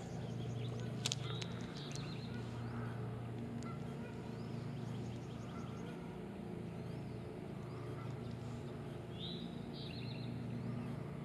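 Steady low hum of an engine running in the distance, with faint bird chirps and a couple of light clicks about a second in.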